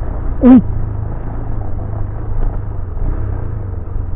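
Motorcycle riding along a road: steady low engine and wind rumble on the rider's microphone. About half a second in comes one brief loud sound falling in pitch.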